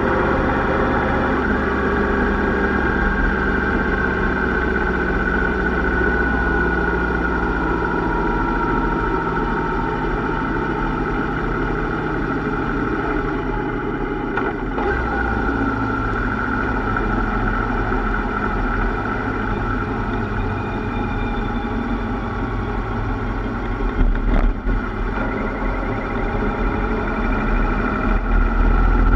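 Yamaha Royal Star's V4 engine running under way at cruising speed, heard from the bike itself over a low wind rumble. Its pitch sags slowly through the first dozen seconds, then holds steady, with a couple of brief knocks, about halfway and again near the end.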